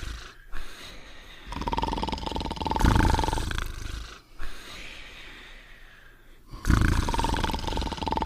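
Cartoon dogs snoring: two long snores, each a loud rough rumble paired with a steady whistling tone, the second starting near the end.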